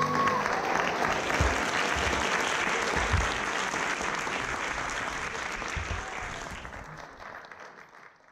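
Audience applauding, the applause slowly dying away and stopping near the end.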